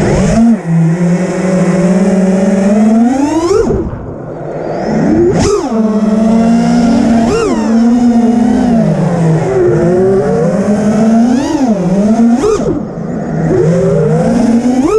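Brushless motors and three-blade 5-inch props of an FPV freestyle quadcopter (BrotherHobby R3 2207 2550kv motors), whining with a pitch that keeps rising and falling as the throttle is punched and eased. The pitch sweeps up sharply several times, and the sound drops away briefly about four seconds in.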